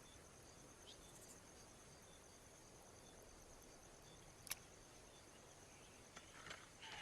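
Faint, steady chirring of field insects: a continuous high buzz with soft, repeated chirps. A single sharp click about four and a half seconds in.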